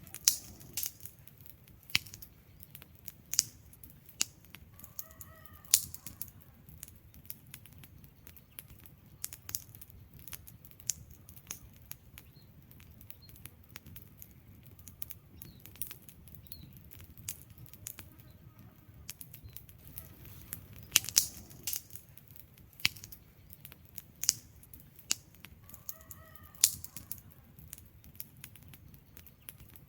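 Wood fire burning, crackling and popping in irregular sharp snaps over a low steady rumble of flames.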